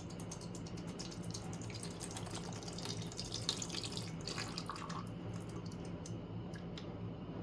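Descaling liquid poured from its bottle into a coffee machine's water tank: a steady splashing pour with small drips, heaviest a few seconds in.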